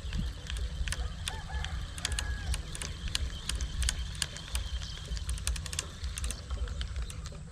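Spinning reel being cranked to retrieve a lure, giving irregular light clicks and ticks, over a steady low rumble of wind on the microphone.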